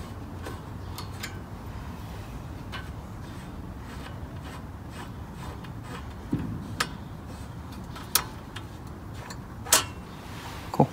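Scattered small metallic clicks and light rubbing of a screwdriver working a screw and a metal radiator guard being fitted by hand, with a few sharper clicks in the second half, over a steady low background hum.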